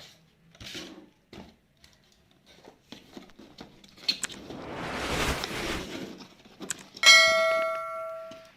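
Cardboard and plastic packaging handled and rustled as the Ryzen 5 3600X's boxed stock cooler fan is unpacked. About seven seconds in comes a sudden, loud bell-like metallic ring that fades over about a second and a half.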